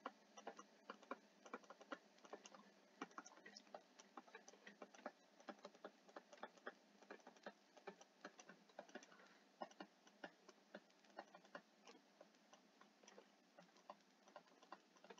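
Faint, irregular ticks and taps of a stylus writing on a tablet, several a second, over near silence.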